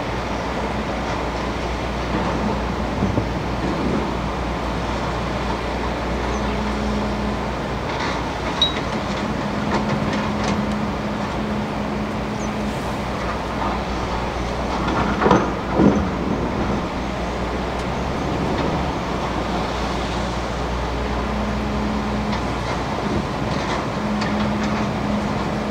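Tracked hydraulic excavator's diesel engine running steadily over the rush of river water, with a low hum that comes and goes as the machine works. Two sharp knocks about halfway through.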